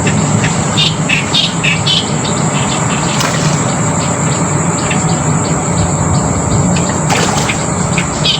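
Insects calling: a steady high-pitched drone with short, irregular chirps, over a steady low rumble.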